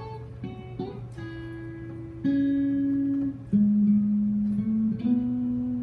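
Guitar playing the opening of a song: a few short plucked notes, then from about two seconds in, long held notes that change pitch a couple of times.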